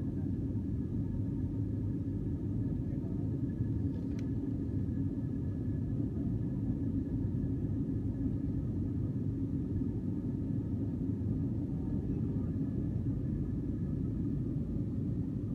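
Airliner cabin noise during the climb after take-off: a steady low rumble of engines and airflow, with faint steady whining tones above it. A single short click about four seconds in.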